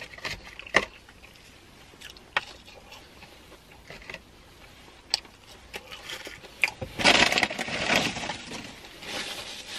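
Eating fast food: scattered small clicks and crinkles of food packaging being handled and chewing, with a louder stretch of rustling about seven seconds in that lasts about two seconds.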